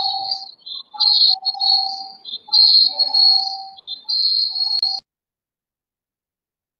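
A loud, high-pitched whistling tone on the video-call audio. It comes in several stretches broken by short gaps and cuts off abruptly about five seconds in.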